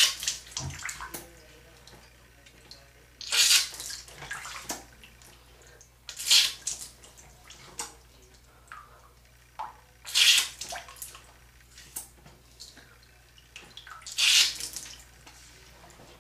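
Water squirted in five short spurts, about every four seconds, each followed by splashing and dripping: an ear being flushed with water to loosen and wash out impacted earwax.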